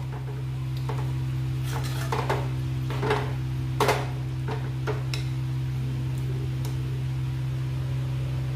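Steel spoon stirring curry in a metal kadhai, knocking and scraping against the pan several times, over a steady low hum.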